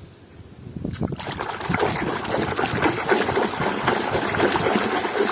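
Water running and splashing over toy vehicles as they are washed clean of mud, starting about a second in and continuing steadily with a dense, crackly spatter.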